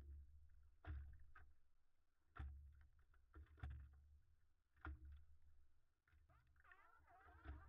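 Faint paddle strokes on a standup paddleboard: a low knock and splash about every second or so, over a low rumble of water and wind. From about six and a half seconds in, a chorus of sea lions barking and calling in the distance.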